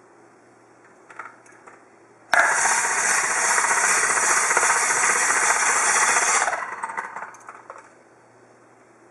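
Breville 800CPXL citrus press motor starting suddenly as the lever arm is pressed down and spinning the reamer cone steadily for about four seconds, then dropping away unevenly as the pressure comes off. Light clicks about a second in.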